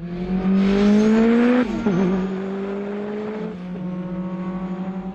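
Car engine revving up, its pitch climbing for under two seconds, then dropping abruptly and settling into a steady note with a slight rhythmic pulse.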